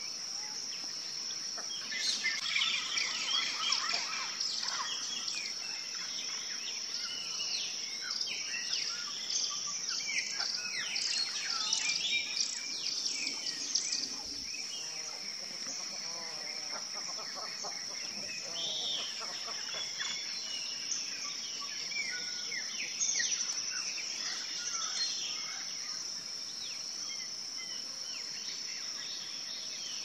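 Wild birds chirping and calling, with many short notes, busiest through the first half and again briefly later on, over a steady high-pitched insect drone.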